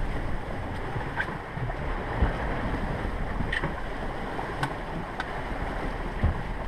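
Steady rush of wind and sea around a small sailing yacht under way, with wind buffeting the microphone. A few faint clicks and two soft knocks sound on deck.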